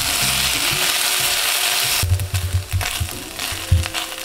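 Butter and cracker crumbs sizzling in a stainless steel saucepan as a silicone spatula stirs them. The sizzle cuts off suddenly about two seconds in, leaving the spatula scraping and clicking against the pan.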